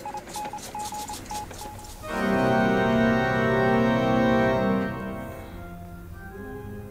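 Morse code beeps from a radio set, a short keyed tone over crackle, for about the first two seconds. Then a loud sustained organ chord comes in, holds, and fades after about three seconds into quieter organ notes.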